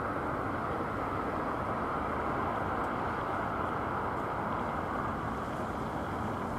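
Airbus A321-231's twin IAE V2500 turbofan engines heard from the ground as a steady, distant jet rumble while the airliner climbs away after takeoff.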